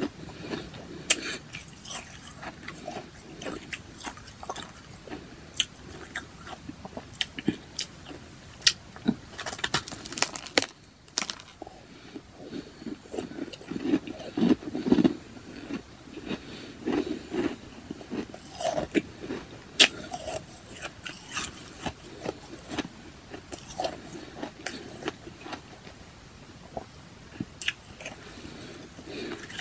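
A person chewing powdery ice chunks, with many sharp, irregular crunches.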